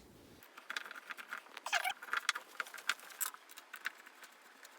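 Quick light clicks and rattles of small parts and panels being handled during flat-pack furniture assembly, with a brief squeak a little under two seconds in.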